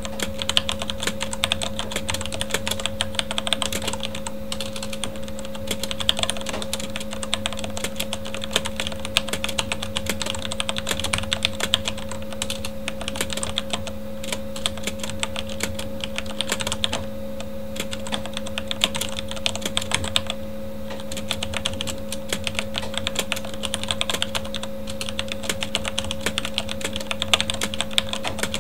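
Fast, continuous typing on a Corsair K70 mechanical keyboard with Cherry MX Red linear switches, dense key clicks with a few brief pauses. A steady computer-fan hum runs underneath.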